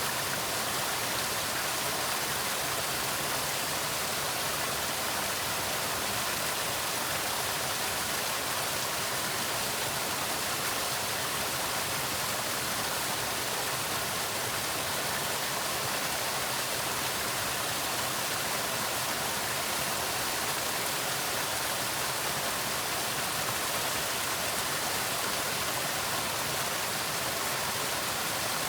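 Waterfall: a steady rushing of falling water, an even hiss with no breaks.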